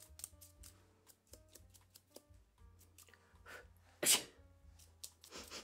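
Light clicks and taps of close-miked ASMR props over soft background music, with a short, loud rush of noise about four seconds in and a smaller one near the end.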